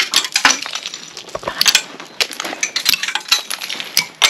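Icicles being knocked and breaking, a rapid, irregular run of glassy clinks and cracks.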